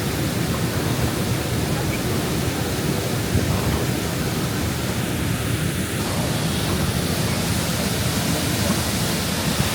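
Steady, loud rushing of falling water with no pitch to it, cut off suddenly at the end.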